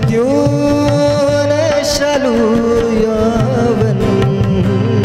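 Male voice singing a Nepali ghazal in long, wavering held notes, accompanied by harmonium and tabla.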